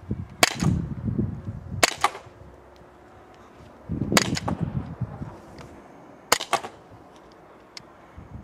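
T4E .43-calibre gas-powered training pistol firing four sharp shots about two seconds apart, each with a second crack just after it.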